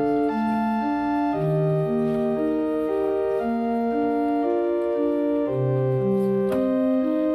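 Background music: a gentle keyboard melody of held, organ-like notes changing about once a second, with one brief click about six and a half seconds in.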